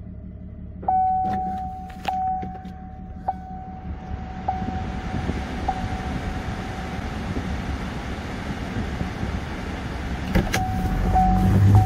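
Car dashboard warning chime ringing one steady tone about every second, five times, then starting again near the end, as the ignition of a 2018 Chevy Malibu is switched on without starting the engine. A steady rushing noise builds up underneath from a few seconds in.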